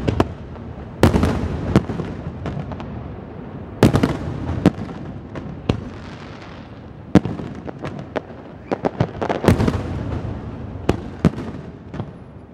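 Aerial fireworks shells bursting, a loud bang every second or two, each trailing off slowly. Around nine to eleven seconds in, the bangs come thick and fast with sharper pops and crackles.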